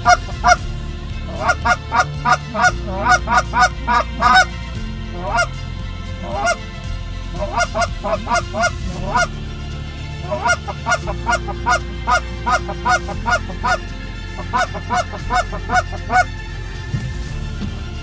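Goose call blown in fast runs of short, rising honks and clucks, calling in passing geese. Faint background music underneath.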